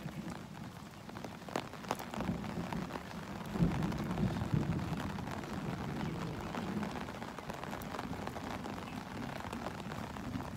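Light rain falling on an umbrella, with many scattered sharp drop ticks over a steady hiss. A low rumble swells about two seconds in and fades after the middle.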